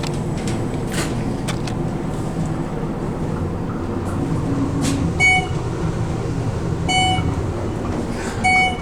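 Modernized 1950s Westinghouse passenger elevator car descending with a steady low rumble and hum. A short electronic beep sounds three times in the second half, about one and a half to two seconds apart, as the car passes floors.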